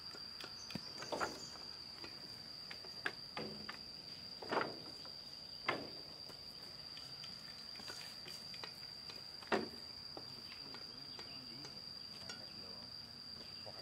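An insect's steady high-pitched drone, with several sharp knocks of wooden planks and bamboo poles being handled on the ground, the loudest about nine and a half seconds in.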